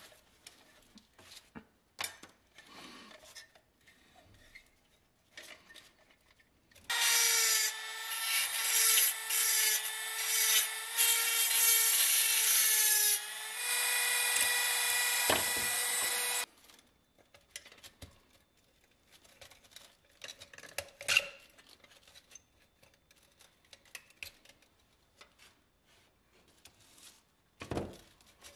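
A small handheld rotary tool runs with a steady whine for about nine seconds on the metal parts of a toy cement mixer. It stops briefly partway and starts again at a slightly different pitch. Before and after it, light clicks and scrapes of the metal parts being handled.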